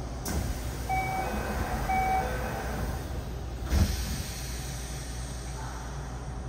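Subway train door-closing chime sounding twice, then the sliding doors running shut and closing with a thump about four seconds in, over the steady hum of the stopped train.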